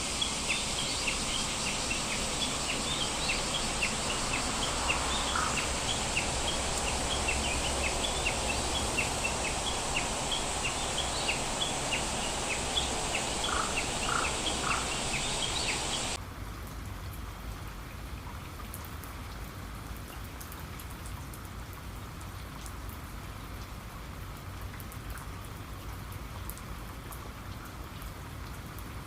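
Rain falling with birds chirping rapidly and continuously over it. About sixteen seconds in, the sound cuts off abruptly to quieter steady rain with the birds gone.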